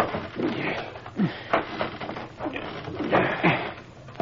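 Knocks and creaks of footsteps on wooden ladder rungs as people climb down: a radio-drama sound effect, about half a dozen irregular strokes, some with a short falling creak.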